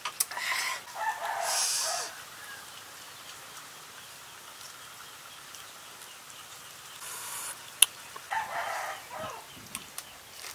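A chicken calling twice, once near the start for about two seconds and again briefly about eight seconds in. A single sharp click comes just before the second call.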